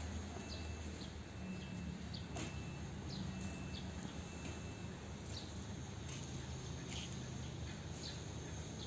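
Background ambience: faint, short falling bird chirps repeat irregularly over a steady low hum and a faint intermittent high tone, with no clear tool sounds.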